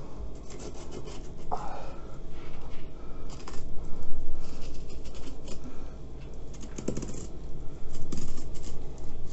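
A knife blade cutting along the back of a large pike, scraping through the scaly skin and flesh in short, irregular scratchy strokes.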